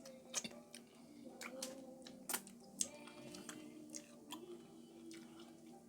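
Close-up mouth sounds of someone chewing a sauce-filled chocolate ghost pepper, with scattered sharp wet clicks of biting and chewing.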